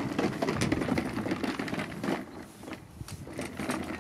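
Plastic wheels of a Parkside PHD 170 C2 pressure washer rolling and rattling over deck boards for about two seconds, followed by a few lighter knocks and clicks.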